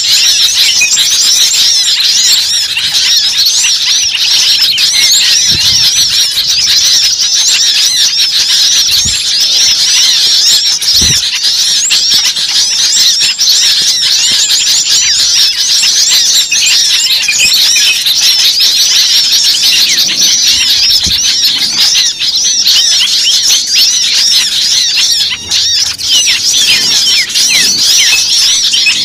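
A dense chorus of many small birds chirping at once: countless short, high, quickly bending calls overlapping without a break.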